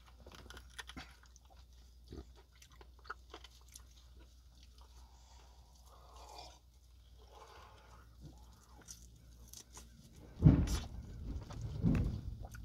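A person chewing and biting food close to the microphone, with small crunches and mouth clicks. About ten and twelve seconds in come two louder thumps.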